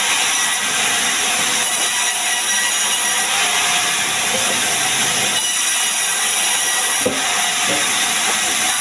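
Vertical band saw running and ripping a sengon log: a loud, steady, high hiss of the blade cutting through the wood, with a single knock about seven seconds in.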